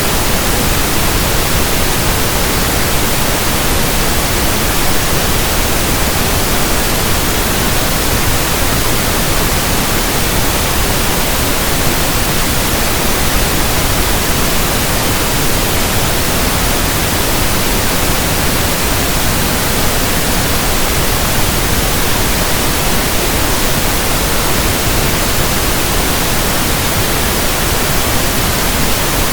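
Steady pink noise: an even, unbroken hiss spread across all pitches, holding one level throughout.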